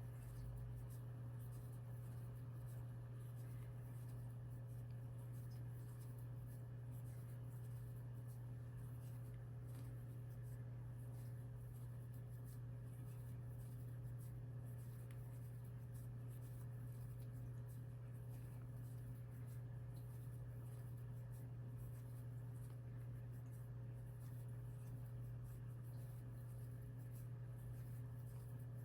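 Faint scratching and rustling of a crochet hook pulling yarn through single crochet stitches, with small scattered ticks, over a steady low hum.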